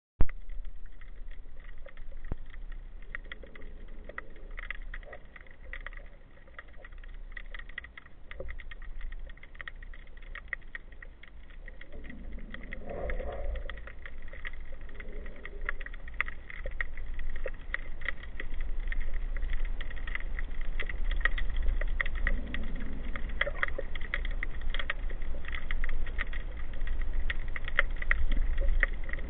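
Underwater sound picked up by a camera mounted on a speargun: a steady low rumble with scattered crackling clicks throughout, growing louder over the second half.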